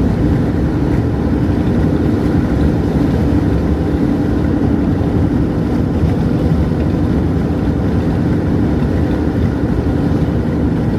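Steady drone of a car on the road, heard from inside the cabin: engine and tyre noise at an even level.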